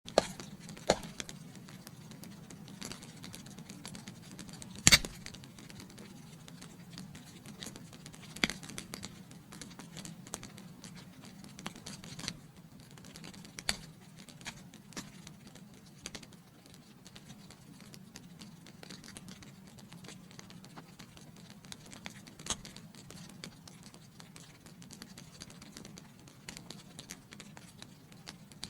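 Wood fire crackling in a fireplace: irregular sharp pops and snaps, the loudest about five seconds in, over a steady low rush of the flames.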